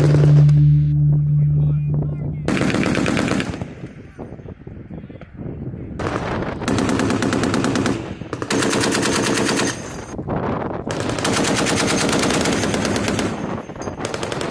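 M2 .50-calibre heavy machine gun firing about six bursts of one to two seconds each, every burst a rapid, even rattle of shots. A steady low hum runs under the first two seconds.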